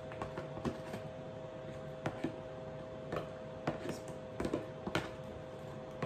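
Spatula scraping batter out of a plastic tub into a baking pan: irregular light scrapes and taps.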